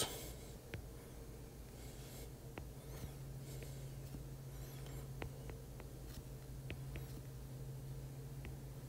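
A stylus tapping and sliding on a tablet's glass screen while lines are drawn: faint, scattered light ticks and a few soft scratchy strokes, over a low steady hum.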